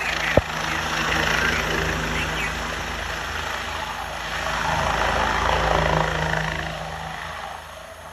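Mercy Flight medical helicopter flying low as it comes in to land. Its rotor and engine noise swells twice and fades toward the end, with a brief click just after the start.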